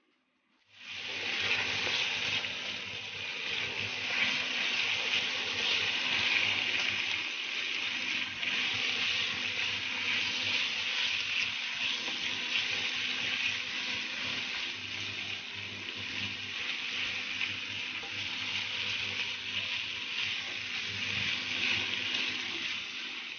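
Chicken breast strips sizzling as they fry in melted butter and oil in a nonstick pan, turned and stirred with a silicone spatula. The sizzle starts suddenly about a second in and then runs as a steady, dense hiss.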